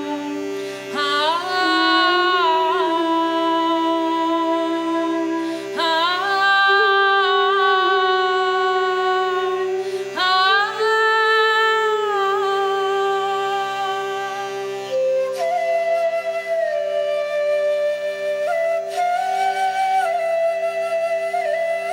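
Live meditative mantra music: a steady pulsing drone under long held melodic phrases that swoop up into each note, with a flute taking the melody in the second half.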